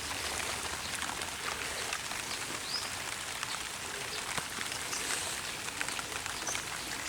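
Steady splashing and trickling of water from a small electric transfer pump's outlet, the pump running weakly and slowly, which the owner puts down to too little voltage at the end of a long extension line.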